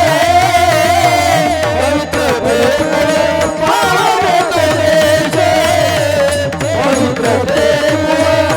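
Devotional kirtan singing: a voice holds long, wavering, ornamented notes over a tabla-style drum accompaniment.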